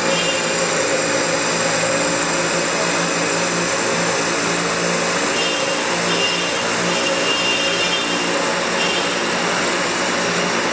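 Haas TM-2 CNC toolroom mill running: a steady mechanical hum and whine over an even hiss, with a faint high whine that comes and goes in the second half.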